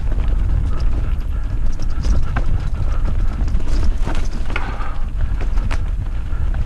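Mountain bike ridden over a rough trail: a steady low rumble from the ride, with scattered clicks and rattles from the bike over the bumps.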